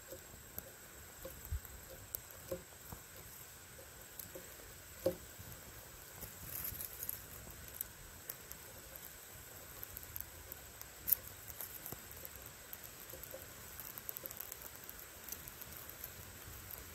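Small kindling fire of sassafras twigs and birch bark crackling, with scattered sharp pops; two louder pops about five and about eleven seconds in.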